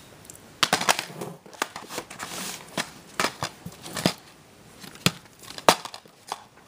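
A plastic DVD case being handled: irregular sharp clicks and knocks, with a brief rustle around two seconds in.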